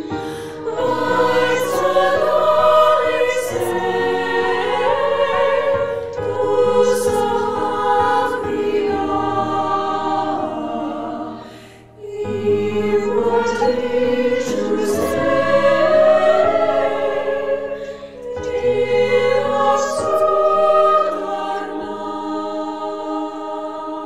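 Virtual choir singing a traditional Armenian lullaby in sustained, overlapping vocal parts. The sound breaks off briefly about halfway through, then resumes, and it softens near the end.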